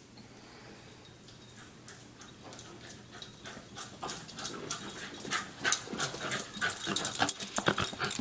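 A dog running back with its ball. Its panting and a quick run of clicks grow louder as it comes close, from about four seconds in.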